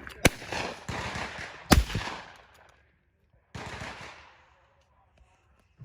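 Shotgun shots: two sharp reports about a second and a half apart, the second the loudest, each with a rolling echo, then a softer, more distant-sounding shot about three and a half seconds in.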